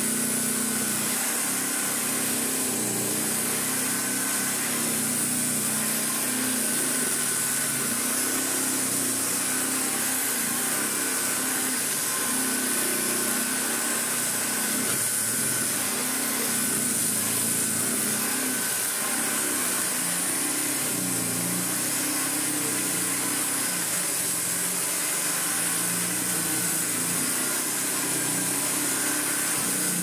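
1935 Hoover 825 upright vacuum cleaner running steadily as it is pushed back and forth over a rug: motor and fan whine with airflow noise, and its belt-driven brush roll works the carpet. The freshly restored machine runs like new.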